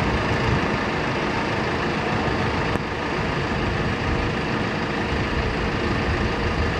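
Steady road traffic noise, with a large vehicle's engine running.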